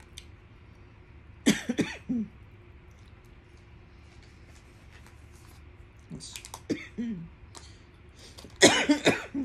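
A woman coughing and clearing her throat in three short bouts: about a second and a half in, again around six to seven seconds, and loudest near the end. She puts it down to a bad esophagus that anything cold, here cold shrimp ceviche, bothers.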